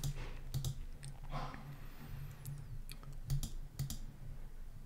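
Several scattered, sharp clicks of a computer mouse, with a faint steady low hum underneath.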